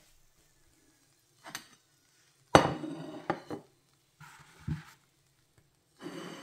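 A utensil knocks and scrapes against a ceramic plate while pieces of fried fish are moved on it. There is one sharp clink about two and a half seconds in, then a few lighter knocks, a scrape with a dull thump, and another scraping sound near the end.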